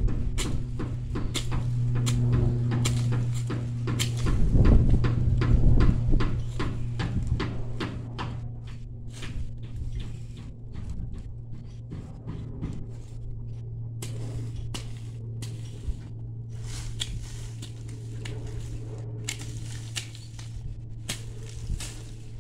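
Irregular sharp clicks and snaps of weeds and dry plant stalks being pulled and cleared by hand, over a steady low hum, with a louder low rumble about four to six seconds in.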